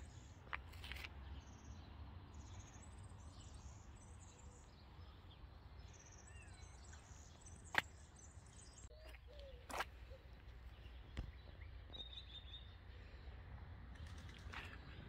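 Faint outdoor ambience: a steady low rumble with small birds chirping now and then, and a few sharp clicks, the loudest about eight seconds in.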